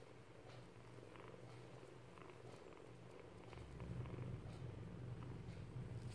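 A cat purring steadily, growing louder about three and a half seconds in.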